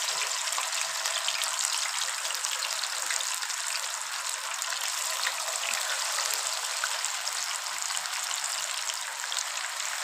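Masala-coated fish pieces deep-frying in hot ghee in a pan: a steady sizzle with fine crackling pops.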